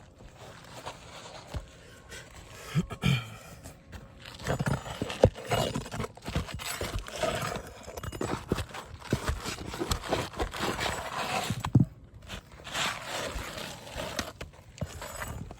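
A pry bar working under asphalt roof shingles to pull out the nails: irregular scraping and prying with sharp knocks and clicks.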